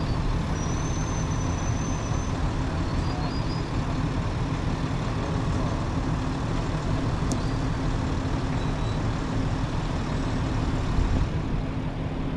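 Heavy diesel truck engine running steadily while a rotator wrecker winches a stuck truck in.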